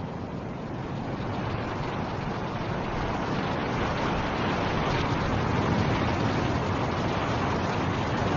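Snowstorm wind blowing in a steady rush, swelling louder over the first few seconds as a gust builds and then holding.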